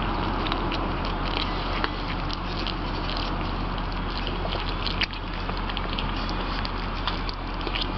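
Cats eating wet canned cat food close up: many small, quick chewing and smacking ticks over a steady low hum.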